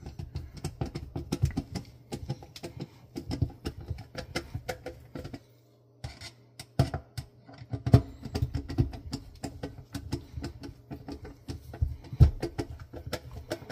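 Irregular small clicks, taps and knocks of hand tools and plastic dishwasher parts being handled and fitted, with a faint low steady hum underneath.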